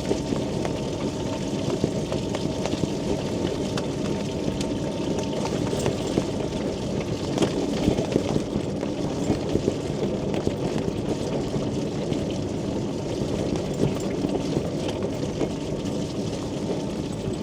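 Quingo Toura Mk2 mobility scooter driving along uneven pavement: a steady rumble of its motor and tyres with small clicks and rattles, and a faint steady whine that stops about five seconds in.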